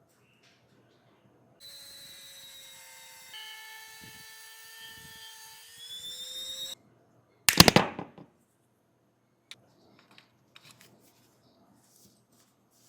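A small electric motor tool runs with a steady whine for about five seconds. Its pitch drops once partway through and rises just before it stops. About a second later comes one loud, short clatter, then a few faint clicks.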